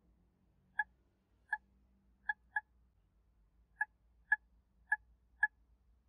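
Paradox touchscreen alarm keypad beeping once for each key tapped: eight short, identical beeps at uneven intervals as an eight-digit serial number is keyed in.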